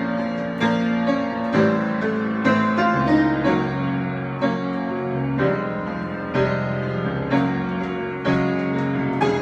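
Solo piano improvisation: chords and single notes struck every second or so and left to ring.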